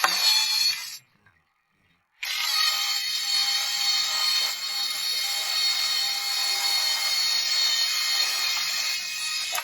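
Electric drill driving a gear-type sheet-metal shear attachment as it cuts metal: a short run that stops about a second in, then after a pause a steady run again with a whine of several held tones.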